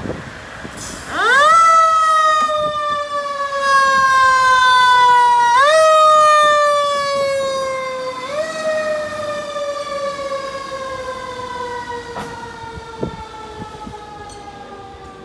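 Fire engine siren sounding three times: each time it rises quickly in pitch, then slowly falls. It is loudest in the first half and fades as the truck drives away.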